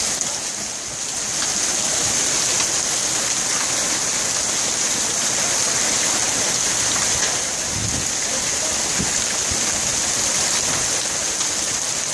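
Heavy hailstorm with rain pouring down: a steady dense hiss with scattered sharp ticks of hailstones striking.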